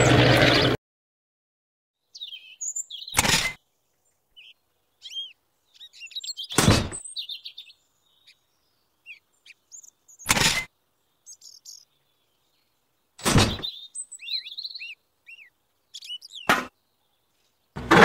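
A small electric motor runs loudly and cuts off abruptly under a second in. Then, over otherwise dead silence, birds chirp while five short knocks come about every three to four seconds as metal pipes are set down in a toy trailer.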